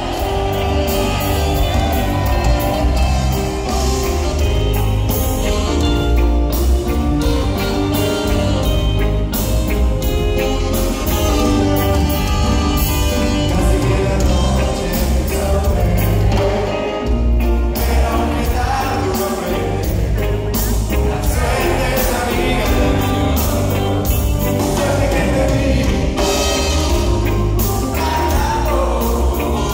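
Live reggae band playing a song with a lead singer: electric guitars, bass, drums and keyboards over a steady heavy bass beat, heard loud from among the audience in a concert hall.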